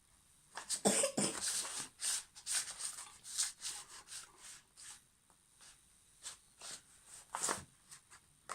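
A person coughing in a fit: a quick run of short coughs for the first few seconds, then a few scattered coughs, with one stronger cough near the end.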